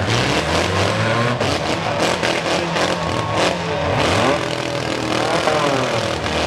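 Four-cylinder demolition derby car engines revving hard, their pitch rising and falling as the cars push and ram each other.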